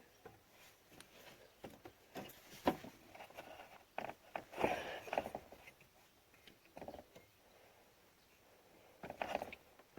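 Scattered light clicks, scrapes and rustles of hands working a belt tensioner into position on a 6.7L Cummins engine, with a few louder knocks and scrapes partway through and near the end.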